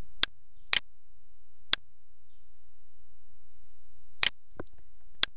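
Computer mouse buttons clicking, about half a dozen separate sharp clicks: a few in the first two seconds, then a cluster near the end.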